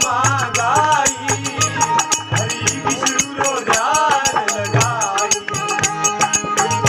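Rajasthani Ram bhajan: a man sings long, wavering melodic phrases over a fast, steady rattling percussion rhythm and a pulsing drum beat.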